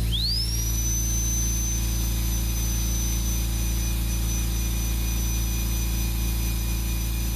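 High-speed rotary carving handpiece fitted with a tiny 699 cylinder bit, spinning up and running against wood: a high whine that climbs quickly in pitch in the first half second, then holds steady over a steady low hum.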